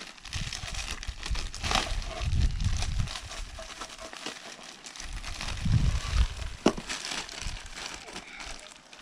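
Packaging crinkling and rustling as a shovel is unwrapped by hand, with a few dull knocks and one sharp click from handling.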